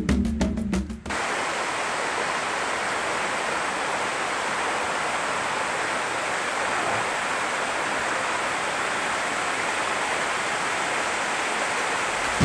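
Steady, even rush of a small waterfall. Rhythmic percussion music plays for about the first second and then cuts off.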